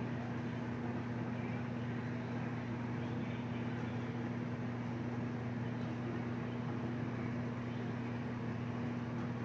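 Steady low hum with an even background hiss, unchanging throughout: a constant machine or electrical drone, with no other events.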